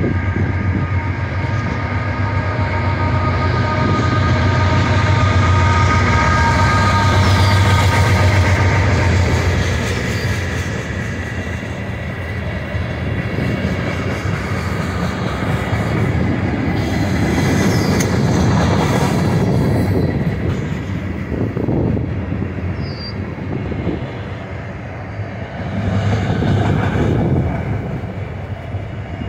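Norfolk Southern freight train passing close by. The GE AC44C6M lead locomotive's diesel engine drones loudly for the first ten seconds or so, then a long string of freight cars and autoracks rolls past with steady wheel-on-rail rumble and clatter.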